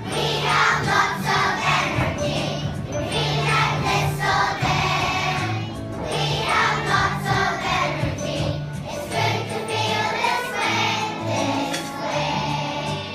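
A group of children singing a song together over instrumental backing music with a bass line.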